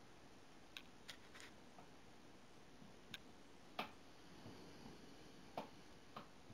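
Faint, irregular ticks and taps, about eight of them, from a kitten playing with laundry hung to dry on a windowsill, over near silence.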